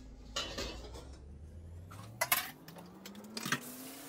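Kitchen clatter: a glass pot lid and dishes clinking, with the sharpest clinks about two seconds and three and a half seconds in. Under it runs a low tone that rises slowly in pitch.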